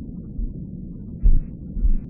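Muffled low white noise with deep heartbeat thumps: a mother's heartbeat as heard from inside the womb. A soft beat comes early, and two strong beats follow, about a second in and just before the end.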